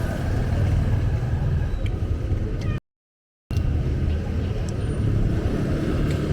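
Street traffic: a steady low rumble of vehicle engines with general street noise, cut off by a brief dropout to silence about three seconds in.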